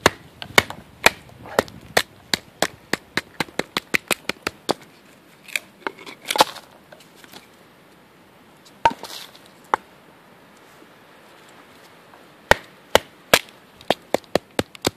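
Sharp wooden knocks of a bushcraft knife being driven into an upright piece of wood to split it, a quick run of about three a second, then a few louder strikes with a splintering crack about six seconds in, two single knocks around nine seconds, and another run of strikes near the end.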